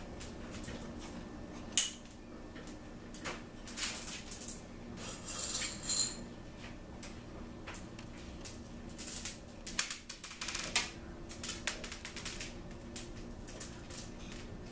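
Scattered small clicks, clinks and rustles as candy pieces are handled and dropped onto an ice cream cake in a metal springform pan, over a faint steady low hum.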